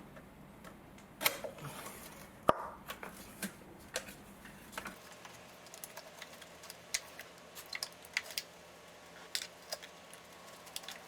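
Scattered clicks and small knocks of a BMW 318i's ignition coil packs and their connectors being unclipped and pulled out, with one sharp click about two and a half seconds in.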